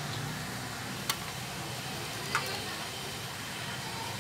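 Steady room hum with two short, sharp clicks, about a second and about two and a half seconds in, from the handsaw being handled.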